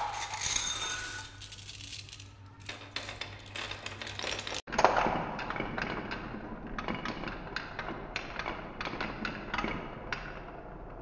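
Glass marbles clinking and clattering. First they drop and rattle in a plastic toy truck bed. After a sudden break nearly halfway through, they roll around a wooden spiral marble-run track, with a dense run of small clicks as they knock against the wood and each other.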